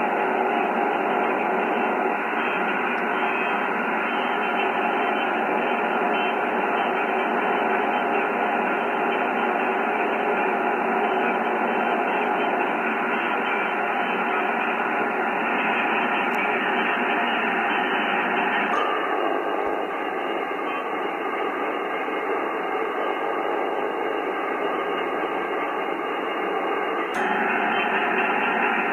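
Amateur HF transceiver receiving the 17 m band in upper sideband: steady band static hiss through the receiver's narrow voice filter, with no clear station audible. The character of the hiss changes abruptly about 19 seconds in and changes back about 27 seconds in.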